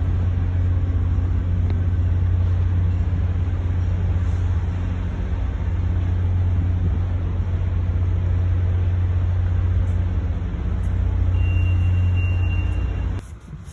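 Passenger train running, heard from inside the car: a steady low rumble with a thin high tone near the end. The sound drops away abruptly just before the end.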